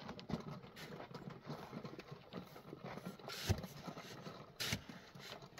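Metal shovel scraping and crunching into a pile of sand and cement mix, a run of gritty scoops with two sharper strikes, one about three and a half seconds in and another near five seconds.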